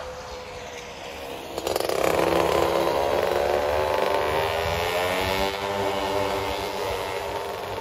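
Street traffic going by close: motor scooters and a car, their engines rising sharply about a second and a half in and easing off near the end.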